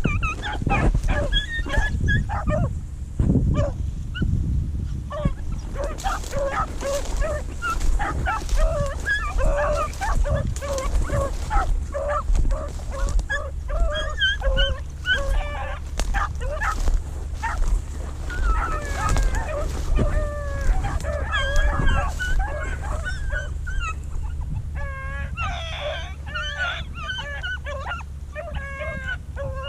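A pack of beagles baying and yelping as they run a rabbit, many short calls overlapping, over a steady low rumble.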